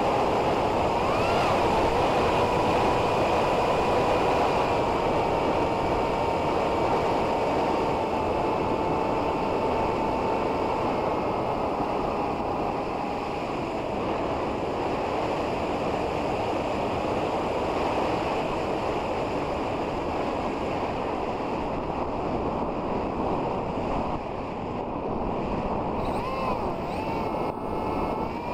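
Wind rushing over the onboard microphone of an electric FPV flying wing in fast flight, with the motor and propeller whine as a steady tone on top. The whine swoops up and back briefly about a second in, sinks slowly and fades after about 13 seconds, then swoops again a few times near the end as the throttle changes.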